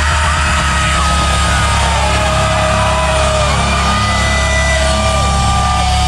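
Metalcore band playing live, loud and heavy: distorted music over a steady low end, with held high notes that slide up and down in pitch.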